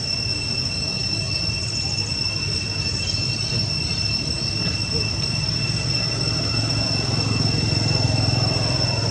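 A steady, unchanging high-pitched whine over a constant low rumble.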